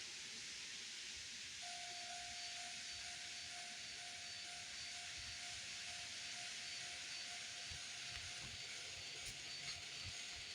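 Model railway level-crossing warning sounder starts about two seconds in, a steady repeating electronic ding that keeps going, over a constant hiss.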